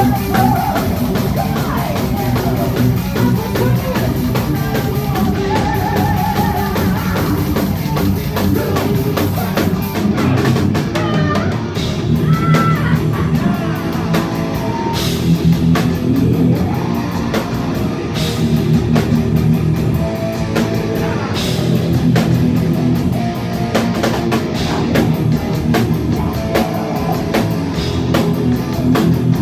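Heavy metal band playing live: distorted electric guitars and a pounding drum kit, with a woman singing lead vocals, heard from the crowd.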